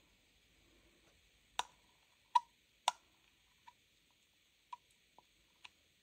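A metal stir stick clicking against a plastic measuring cup: about seven light, sharp clicks at irregular intervals, the loudest two around the middle.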